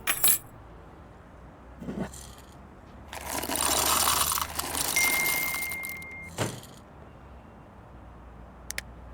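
Sound-effects track of a short AI-generated video clip: a sharp clatter at the start, a knock about two seconds in, then a swelling rush of noise from about three to six seconds with a short high beep near its end, followed by a thud and faint clicks near the end, over a low hum.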